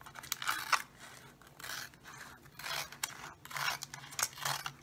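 Scissors cutting through thin clear soda-bottle plastic, a series of crisp snips about one a second.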